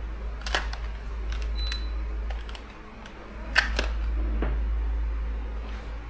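Room air conditioner running with a steady low hum. Two sharp clicks fall about three seconds apart, and a short high beep sounds between them.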